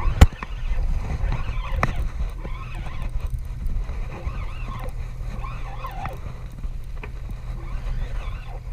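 Steady low rumble of a fishing boat, with one sharp, loud knock just after the start and lighter clicks about two seconds and seven seconds in.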